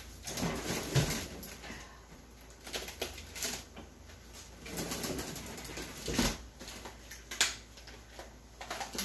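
Kitchen handling noises: a few sharp clicks and knocks with rustling between them.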